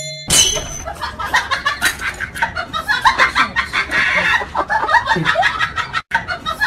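Chickens clucking in a dense run of short calls, with a brief cut-out about six seconds in.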